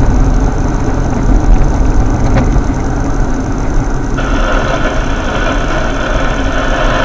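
Road and engine noise inside a moving car, a steady low rumble. About four seconds in, a steady hiss comes in suddenly and runs until it cuts off abruptly near the end.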